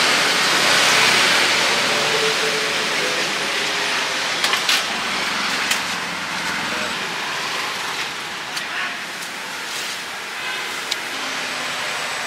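Banana leaves and plastic bags rustling as they are handled and trimmed with scissors, with a few sharp clicks, over steady street traffic noise.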